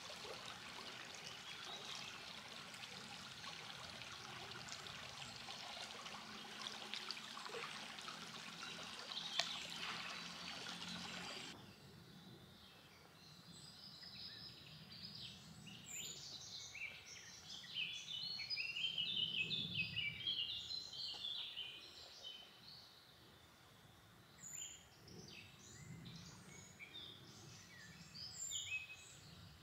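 Running water of a small stream for about the first twelve seconds, cut off abruptly. After the cut, woodland songbirds chirp and sing in short, quick phrases.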